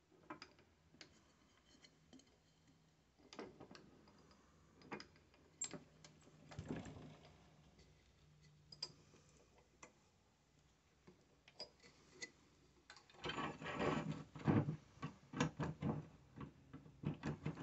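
Scattered faint clicks and knocks of a cedar blank being fitted between centres on a wood lathe, as the tailstock, hand wheel and locking levers are handled. Near the end a quick run of louder clunks and rattles comes as the metal tool rest is set in place.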